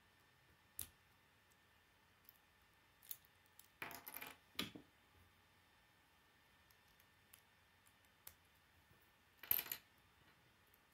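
K'nex plastic rods and connectors clicking and snapping together as pieces are fitted by hand. There is a single click about a second in, a cluster of rattling clicks around the middle, and another cluster near the end.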